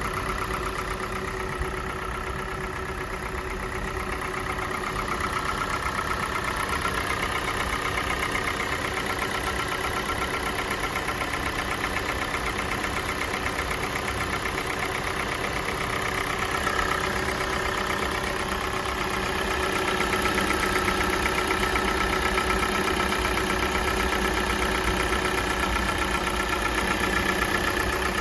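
A high-mileage Kia Sportage's G4NA 2.0-litre four-cylinder petrol engine idling as it warms up from a cold start, running fairly evenly. It gets slightly louder about four seconds in and again past the middle.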